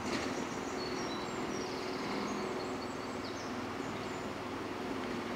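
Small birds chirping in short, high-pitched calls over a steady outdoor background hiss.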